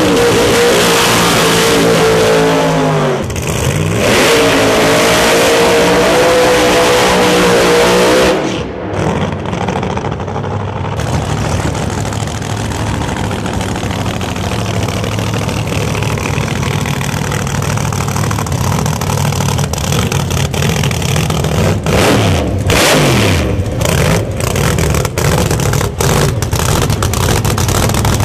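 Supercharged drag car engine held at high revs during a burnout, for about three seconds, then again after a short dip for about four more. At about eight seconds it falls away to a steadier, quieter engine sound, with a few sharp cracks near the end.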